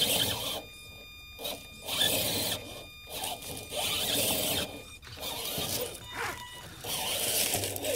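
Electric motor and geared drivetrain of a radio-controlled scale rock crawler whining in several short throttle bursts, with pauses between, as it climbs.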